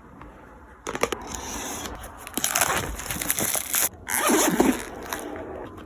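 Packaging of a wireless microphone kit being opened and handled: rustling with many sharp clicks, starting about a second in, with two louder stretches in the middle.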